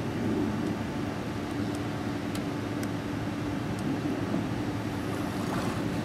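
A steady machine-like hum holding one constant pitch over an even rushing noise, with a few faint light clicks.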